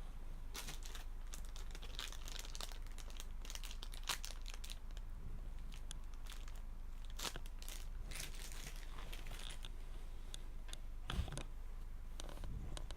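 Plastic packaging crinkling and rustling in quick, irregular crackles as it is handled, with one dull thump near the end, over a steady low hum.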